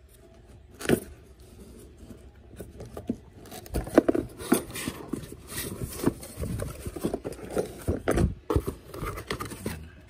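Cardboard boxes being handled: an inner box slid and lifted out of an outer cardboard box and set down, cardboard scraping and rubbing with a sharp knock about a second in and a run of irregular knocks and rustles in the second half.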